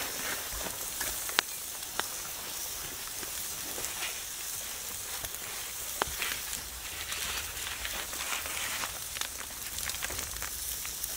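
Ribeye steak sizzling on a grill grate over campfire coals: a steady hiss, with a few sharp pops, one about one and a half seconds in and another about six seconds in.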